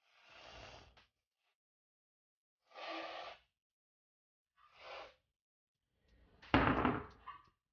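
Aerosol can of whipped cream spraying in four short spurts, the last one the loudest.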